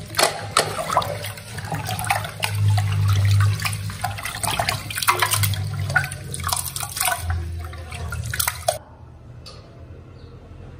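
Water running from a kitchen tap and splashing, with irregular splashes and clatter. It cuts off suddenly about nine seconds in.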